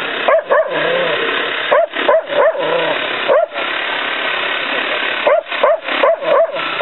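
A dog barking and yelping in quick clusters of short, high yelps, with a pause of about two seconds in the middle, over steady background noise.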